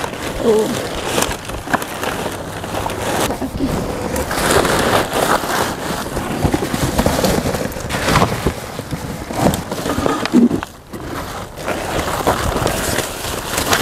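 Rummaging through trash in a dumpster: packaging and cardboard boxes rustling, crinkling and knocking as they are shifted about, with a short quieter spell near the end.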